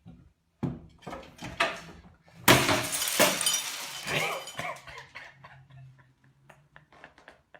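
A few knocks, then glass crashing and shattering about two and a half seconds in, followed by scattered small clinks of pieces settling.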